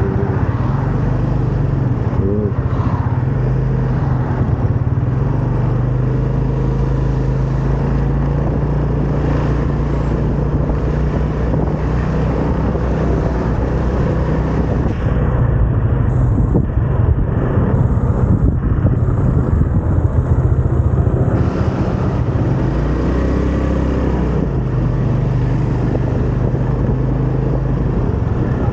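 Vespa scooter engine running while riding, a steady engine note with road noise. The note drops briefly a little past two-thirds of the way through, then picks back up.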